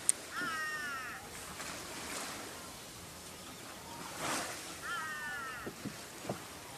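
An animal calling twice, each call a short, high, wavering cry under a second long, about four seconds apart. A sharp click comes just after the start, and a few light knocks come near the end.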